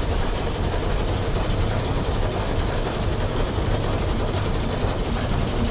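A steady low mechanical rumble with a wide hiss above it, running evenly without change.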